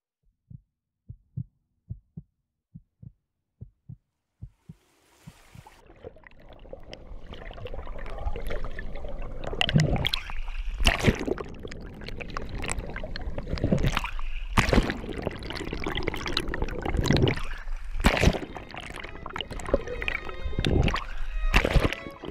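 A slow heartbeat of low, soft thumps in near silence, then a rising underwater rush of swimming water. It grows into loud, irregular splashing and churning, with a strong surge about every three to four seconds.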